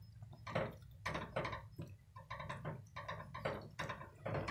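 Silicone spatula stirring thick soup in a stainless steel pot: irregular soft scrapes, taps and sloshes, about three a second, over a low steady hum.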